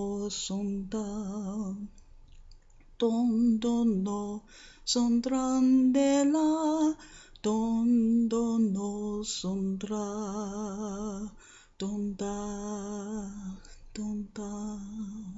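A single unaccompanied voice singing in tongues: sustained, wavering notes in about seven short phrases with brief pauses between them.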